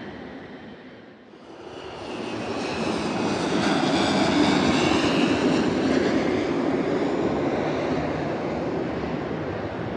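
Small twin-engine turboprop plane passing low overhead on approach: engine and propeller noise swells over a couple of seconds to its loudest about four to five seconds in, with a whine that drops in pitch as it goes by, then fades slowly.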